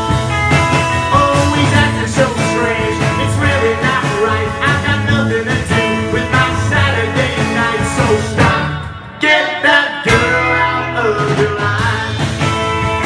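Live skiffle-style rock and roll band playing: strummed acoustic guitar and upright double bass under sung vocals. The band drops out briefly about nine seconds in, then comes straight back in.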